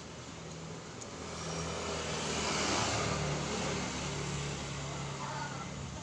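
A motor vehicle passing by: engine noise swelling to a peak about three seconds in, then fading.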